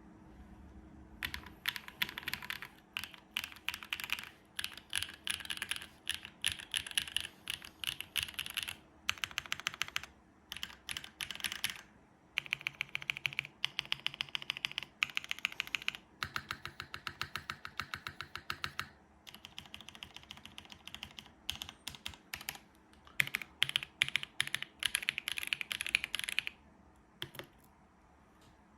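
Typing on a Mode Sonnet mechanical keyboard with a carbon fiber plate, plate foam, lubed Createkeebs SOTC linear switches and GMK MoDo 2 keycaps. Quick runs of keystrokes are broken by short pauses, and the typing stops near the end.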